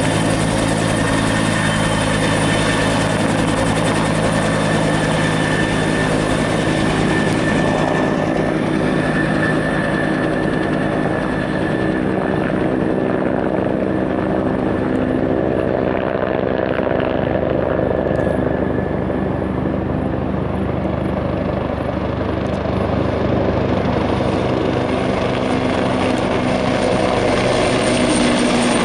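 Firefighting helicopter hovering low with its water bucket slung beneath, a steady rotor beat under a thin engine whine. The sound dulls in the middle and grows fuller and louder near the end.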